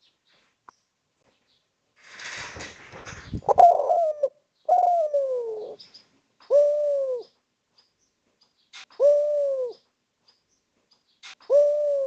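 Spotted dove cooing: five coos, the first two sliding down in pitch, the rest short and even and a couple of seconds apart. Just before the coos, a second of rustling noise ends in a thump.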